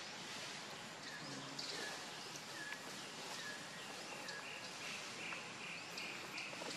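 Steady outdoor background hiss with small birds chirping: short falling chirps repeating about every second, then a quick run of higher chirps near the end.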